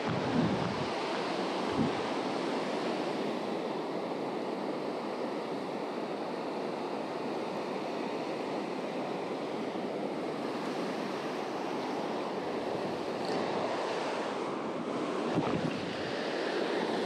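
Gulf surf breaking steadily on the beach, with wind on the microphone.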